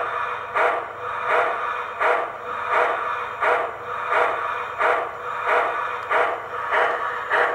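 Massoth sound module in an Aristocraft 4-6-2 model steam locomotive playing steam chuffs through its speaker, an even beat of about three chuffs every two seconds.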